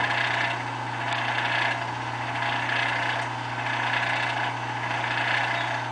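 Krypton plasma tube apparatus running: a steady low electrical hum with a hiss that swells and fades about once a second.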